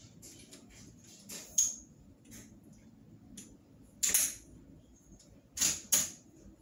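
Sharp clicks and knocks of a metal crutch being handled and adjusted. There are several, with the loudest about four seconds in and two more near the end.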